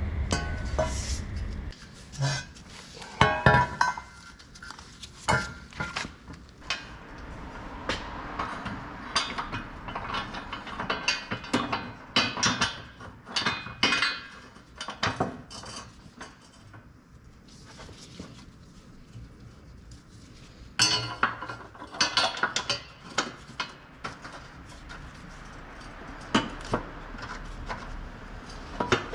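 Metal hand tools and steel parts clinking and knocking in irregular sharp clicks, the loudest strikes about three to four seconds in.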